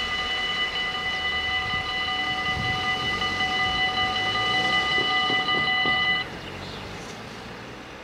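Electric level-crossing bells ringing steadily while the half-barriers rise, then cutting off suddenly about six seconds in once the crossing is clear. A car drives over the crossing underneath the ringing.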